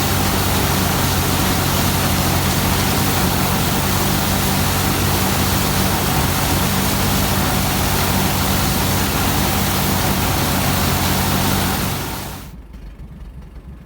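Combine harvester running steadily while cutting wheat: a loud, even engine hum under a wash of threshing and machinery noise. A little over 12 seconds in, the sound drops off abruptly to a much quieter low hum.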